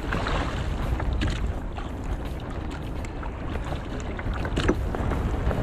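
Wind rumbling on the microphone while a wet nylon gill net is pulled in by hand over a small boat's gunwale, with scattered rustles, drips and light knocks from the net.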